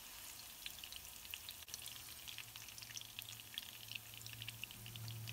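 Hot cooking oil sizzling and crackling in a pan after leek and garlic have been fried in it for an infusion oil, with scattered small pops over a faint low hum.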